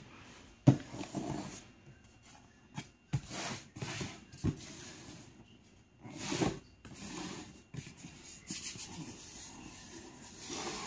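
A cardboard shoe box being handled on a wooden tabletop: hands rubbing and sliding over the cardboard as the box is turned. There is a sharp knock under a second in and several louder scuffs.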